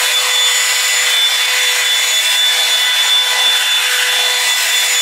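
Hair dryer running steadily: a loud rush of air with a steady high-pitched motor whine.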